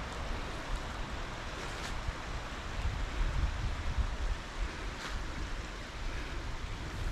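Steady rushing of flowing river water, with wind rumbling on the microphone in gusts that swell about three to four seconds in.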